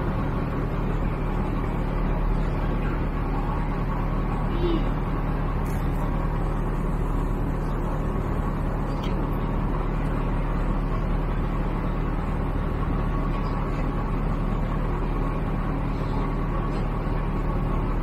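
An engine running steadily at constant speed: an unchanging low drone with a steady hum under it.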